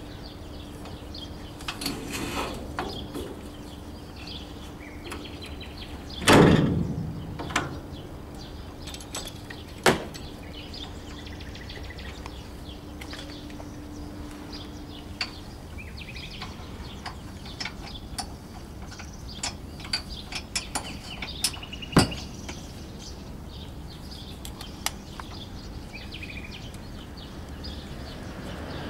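Metal clicks and knocks from a trailer's overrun-brake coupling being handled and latched onto a car's tow ball. There is one heavy thump about six seconds in and a few sharp knocks later.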